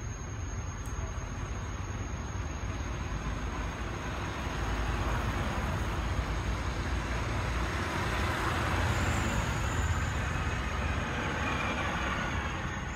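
A motor vehicle passing on the road: a steady low engine and tyre noise that swells about a third of the way in and eases off near the end.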